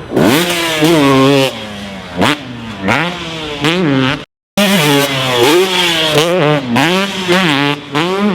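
Two-stroke motocross bike engine revving hard and easing off over and over, its pitch rising and dropping less than a second apart as the throttle is worked through a string of jumps. The sound cuts out briefly about halfway through.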